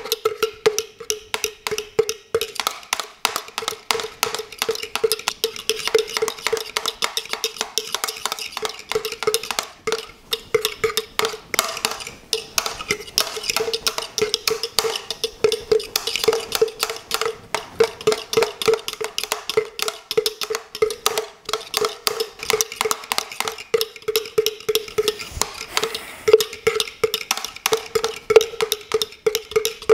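A fork beating egg whites and sugar by hand in a jug, rattling against its sides in a fast, steady rhythm of several strokes a second, with a ringing tone from the jug on each stroke. The mix is being whipped toward a thick white meringue.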